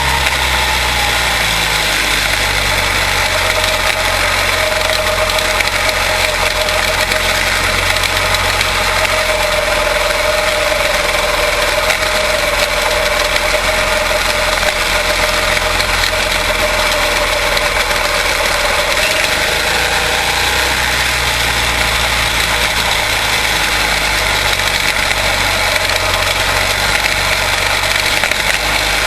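A pack of quarter midget race cars with Briggs & Stratton Animal single-cylinder engines running steadily on track, their overlapping engine notes blending into one continuous drone.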